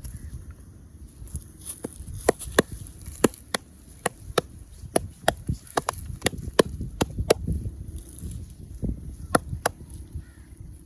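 Sharp slapping strikes of a massager's hands on the head and shoulders, chopping-style percussion massage, about twenty crisp smacks in an irregular rhythm starting about two seconds in, over a low outdoor rumble.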